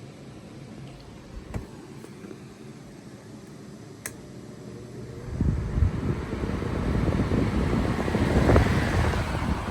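Lasko 20-inch Wind Machine fan starting up: two sharp clicks in the first few seconds, then about five seconds in the fan's air blast begins buffeting the microphone as a gusty rumble that grows louder as the blades spin up.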